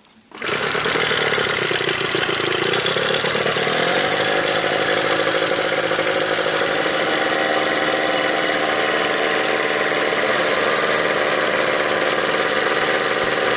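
Outboard motor starting about half a second in and then running steadily at idle, its leg in a bucket of fresh water for a flush.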